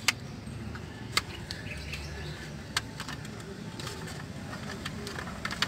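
A few sharp plastic clicks and taps, spread out, as the aircon vent louver is worked loose from an Isuzu Crosswind's dashboard vent panel by hand. Under them is a low steady hum.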